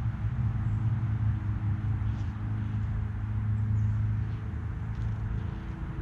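Steady low mechanical hum, like an engine or motor running at an even speed, with a few faint, short high chirps now and then.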